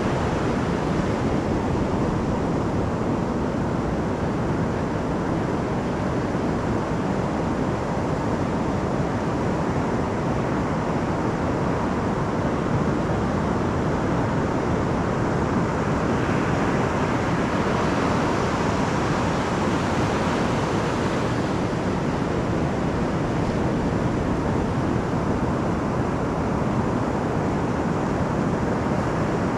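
Pacific surf breaking and washing up a sandy beach: a steady rush of waves, growing a little brighter for a few seconds past the middle as a wash of foam runs up the sand.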